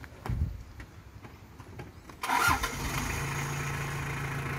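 Mitsubishi L300 van engine starting about two seconds in, with a sudden loud burst, then running steadily at a low idle.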